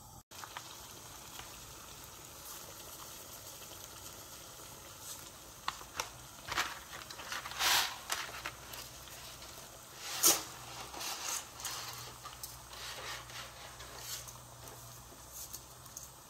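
A pot of water at a rolling boil on a gas burner gives a steady background hiss and bubbling. Short, sharp rustles and clatters from handling the dry fettuccine come through it, the loudest about 8 and 10 seconds in.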